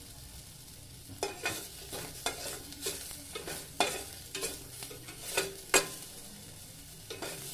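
Spatula scraping and knocking against a stainless steel pot while onions and garlic sauté in hot oil with a faint sizzle. About a dozen quick strikes come from about a second in, the loudest near six seconds, then one more near the end.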